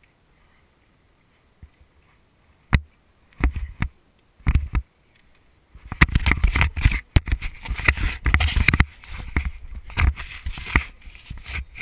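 Handling noise on a GoPro camera: a few sharp clicks, then short scrapes, then from about six seconds in a dense run of rubbing, scraping and clicking as the camera is moved about.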